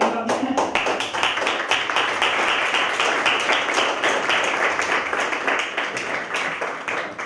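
Audience applauding: dense, many-handed clapping that starts to thin out near the end.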